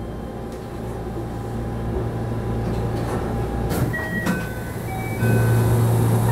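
Steady low hum of a stopped Keihan 13000 series electric train, with two sharp knocks a little under four seconds in, typical of the doors sliding shut, followed by a few short beeping tones; about five seconds in the hum steps up and gets louder.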